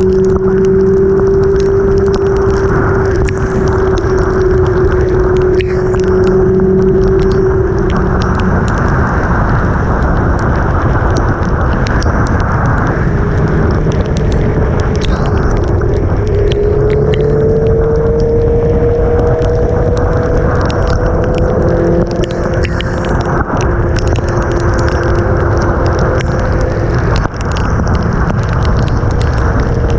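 Sport motorcycle riding in heavy rain, its engine note holding steady under loud wind rush on the helmet-mounted microphone, then rising as the bike speeds up about halfway through. Raindrops tap against the helmet and camera.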